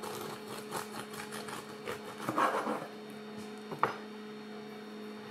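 Bread knife sawing back and forth through the crust and crumb of a seeded wholegrain loaf on a wooden chopping board, a scratchy rasping for about three seconds, followed by a single sharp knock near the end. A steady electrical hum runs underneath.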